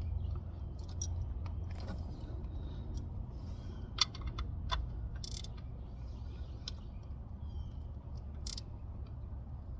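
Scattered light clicks and taps of a hand tool working the oil drain plug back in, irregular rather than a steady ratchet rhythm, over a steady low rumble.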